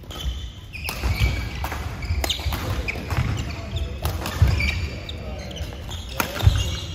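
Badminton doubles rally: several sharp racket hits on the shuttlecock about a second apart, with players' shoes squeaking and thudding on the court. The loudest hit, a jump smash, comes near the end.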